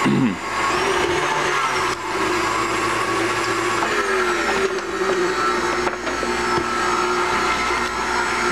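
KitchenAid stand mixer motor running steadily, beating pudding mix and milk in its steel bowl; its pitch dips briefly about four seconds in.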